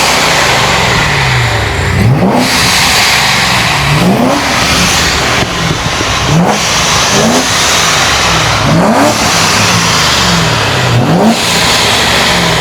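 Performance car engines revving repeatedly, the pitch jumping up sharply several times and sinking back between revs.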